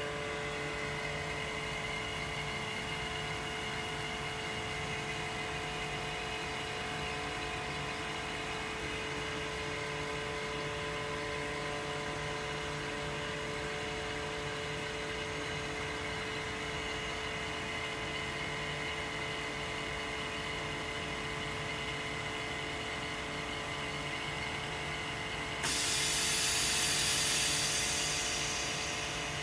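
OCA vacuum laminating machine running its cycle: the vacuum pump holds a steady hum with several fixed tones. About 26 s in, a loud hiss of air starts suddenly and slowly fades as the chamber is pressurised for the holding stage.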